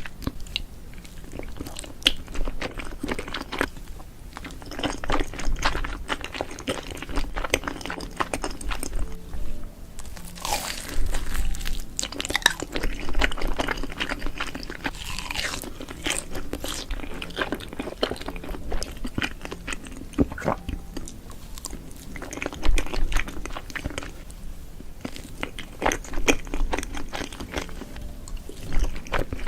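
Close-miked mukbang eating sounds: repeated crunchy bites and chewing, over background music.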